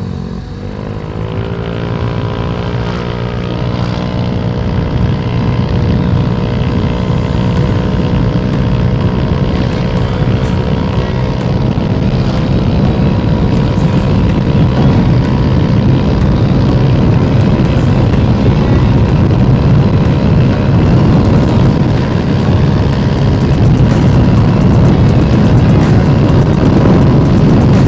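Yamaha Mio i125 scooter's single-cylinder engine at full throttle. Its pitch climbs in the first second or two, then holds nearly steady as the CVT shifts up and road speed rises, with wind and road noise growing louder. The transmission is fitted with 1000 rpm center and clutch springs and 9 g flyball rollers.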